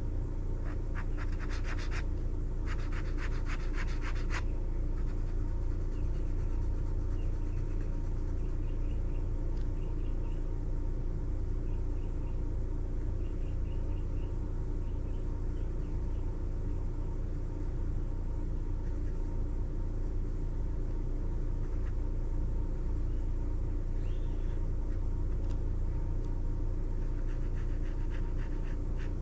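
Ink pen scratching on sketchbook paper in quick hatching strokes, two runs of rapid scribbles about a second in and again near the end, with softer strokes in between. A steady low rumble runs under it throughout and is the loudest part.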